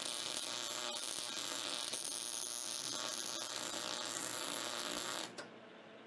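MIG welder arc crackling steadily as a piece is welded onto a steel bracket. It stops abruptly about five seconds in.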